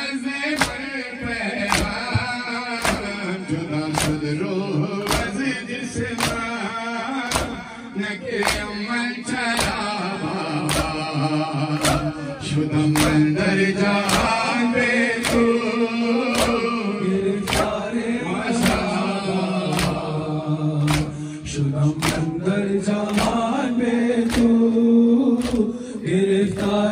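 Crowd of men chanting a Farsi noha in unison while beating their chests in matam, a steady beat of sharp slaps a little under two a second over the sung lines.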